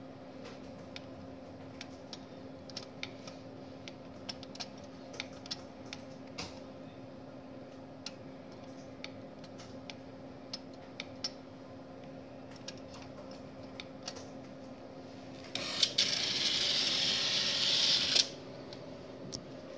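StorageTek SL48 tape library humming steadily while its front-panel keypad clicks one press at a time. Late on a loud whir starts suddenly and cuts off after about two and a half seconds: the library's robotic picker moving as the slot-to-slot test runs.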